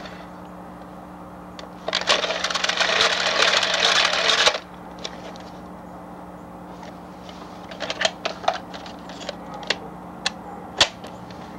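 About two seconds of dense rattling noise, then a run of sharp plastic clicks and clacks as a VHS cassette is unclipped and lifted off a hand-cranked manual tape rewinder, over a steady low hum.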